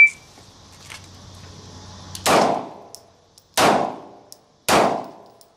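Three pistol shots roughly a second apart, the first a little over two seconds in, each followed by a short ringing echo. They are fired in a timed drill from the draw.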